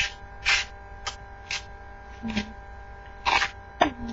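A series of short, scratchy rubbing strokes, irregularly spaced, from hands handling and rubbing a home-made painted prop machete, over a steady faint electrical hum.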